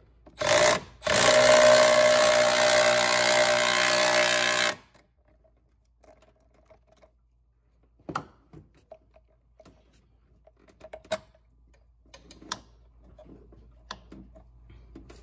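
Small power tool motor driving an 11 mm socket on an extension to tighten a T-bolt hose clamp: a short burst, then about four seconds of steady whine that stops abruptly. A few light metallic clicks follow.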